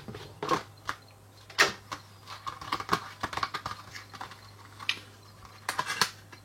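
Cardboard and plastic packaging being handled: scattered knocks, taps and rustles, with the sharpest clicks about a second and a half in and near the end.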